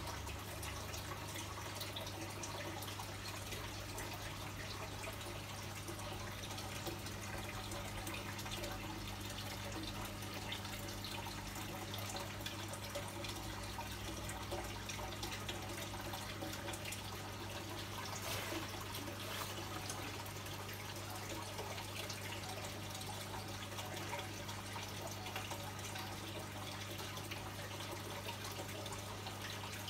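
Aquarium water trickling and bubbling steadily over a low, constant hum, typical of a tank's filter or air pump running.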